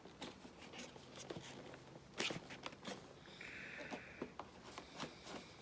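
Faint handling of an action-figure box: scattered clicks and crinkles of cardboard and a plastic tray as the packaging is opened. About three and a half seconds in there is a brief scrape lasting under a second.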